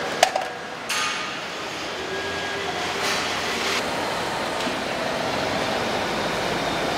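Truck assembly-hall noise: a steady mechanical din, with a sharp metallic click about a quarter second in and short hissing bursts about one second and three seconds in.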